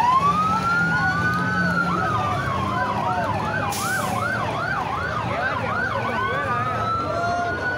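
Emergency-vehicle sirens sounding together: a slow rising and falling wail, joined about two seconds in by a fast yelp of about three to four sweeps a second that stops about five and a half seconds in, with a vehicle engine rumbling underneath.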